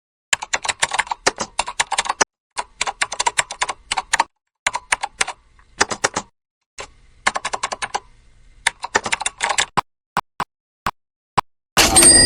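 Rapid keyboard-style typing clicks in bursts with dead-silent gaps between them, then slower single clicks about two a second, and a short, bright ringing burst near the end, like a typewriter bell.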